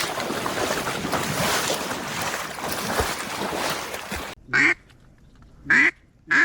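A steady rushing noise that cuts off abruptly about four seconds in, followed by three short, loud duck quacks, each about a second apart.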